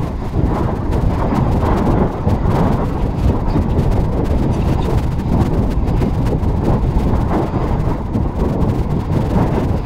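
Steady low rumbling noise on the microphone of a camera carried on a run: wind and handling noise, with no distinct events.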